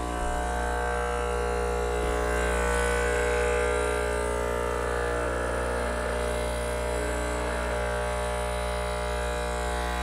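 Hamilton Beach 40729 espresso maker's pump running with a steady, even hum. It is pumping without delivering any water, which the owner takes for a clog in the system.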